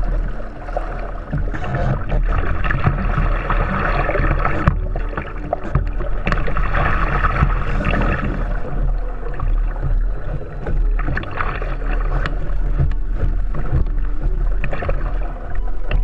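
Water rushing and splashing along the hull of a kite-towed kayak under way, swelling and easing a couple of times, over a deep steady rumble.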